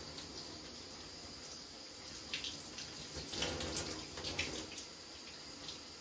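Shower water running, with a run of louder wet splashes and squelches about two to four seconds in as a hand works conditioner through wet hair.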